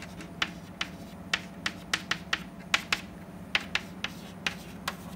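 Chalk tapping and scraping on a chalkboard as an equation is written: a string of sharp, irregular clicks, a few a second, one for each stroke.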